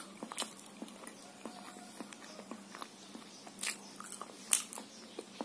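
Close-up chewing and mouth sounds while eating a soft fried snack: scattered wet clicks and smacks, with a few louder sharp ones, two of them near the end.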